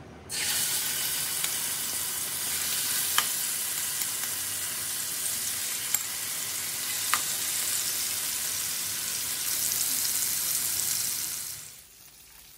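Marinated chicken pieces sizzling hard as they hit hot olive oil and fry in a pan, a steady hiss with a few sharp pops. The sizzle starts just after the chicken goes in and cuts off suddenly near the end.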